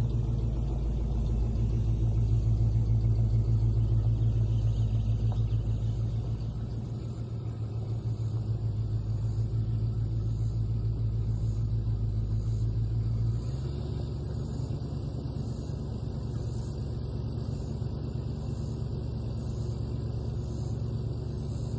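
An engine running with a steady deep drone. About 13 seconds in it drops a step lower in level and settles into a steadier run.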